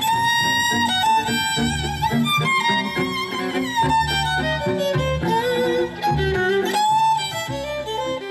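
Folk music: a fiddle carries the melody over a steady, rhythmic low accompaniment, an instrumental passage of a sung folk song with no voice in it.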